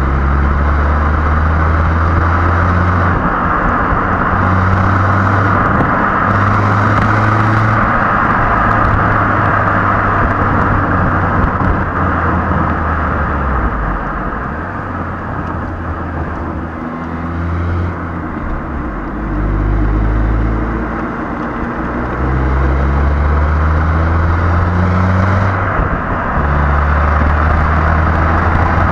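Stock exhaust of a Hyundai i20 Elite's 1.2-litre four-cylinder petrol engine while driving, its note climbing in pitch several times as the car accelerates and easing off for a few seconds in the middle. Heavy tyre and wind rush runs under it.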